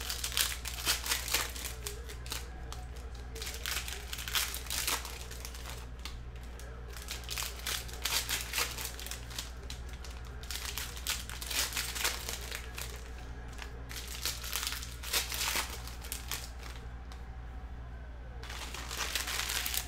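Plastic trading-card wrappers crinkling and crumpling in irregular bursts as they are handled and torn open, over a steady low electrical hum.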